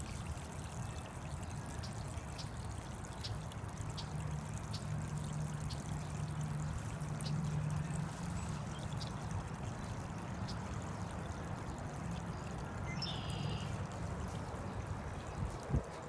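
Backyard pond waterfall: water splashing steadily over rocks into the pond. A brief knock near the end.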